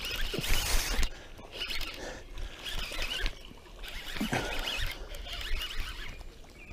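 Baitcasting reel cranked in irregular spurts, a scratchy, squeaky ratcheting, as a bass hooked on a topwater frog is reeled in to the bank, with rustling and low handling bumps.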